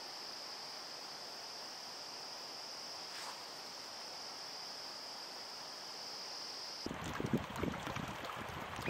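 An insect trilling as one steady, unbroken high-pitched tone, which cuts off abruptly about seven seconds in. Gusty wind buffeting the microphone then takes over and is louder.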